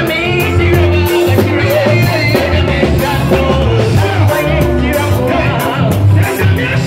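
Loud amplified gospel music with a heavy, steady bass line and beat, with a singer's voice over it through a microphone and PA.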